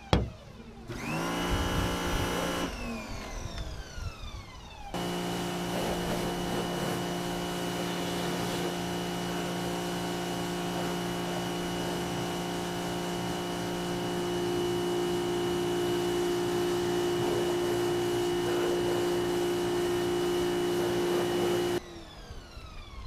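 Handheld electric car buffer-polisher running. It winds up to speed briefly about a second in, then from about five seconds in runs at a steady whine until it stops abruptly near the end.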